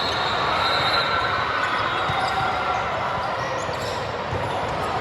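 Athletic shoes squeaking on a gym court floor, a few high squeals over the steady noise of a busy gym hall.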